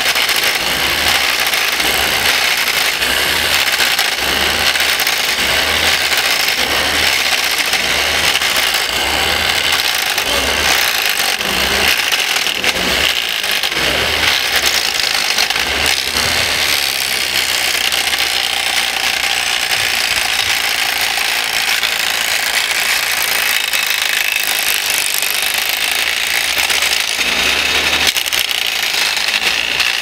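A working scale-model wood chipper running and chipping branches: a steady, loud mechanical grinding and rattling, with a low pulse about once a second that stops about halfway through.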